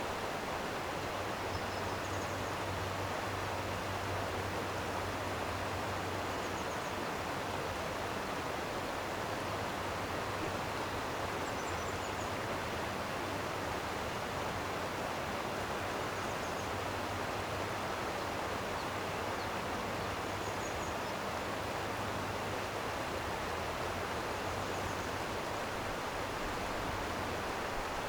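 A stream's flowing water, a steady even rush. Faint short high chirps come every four or five seconds.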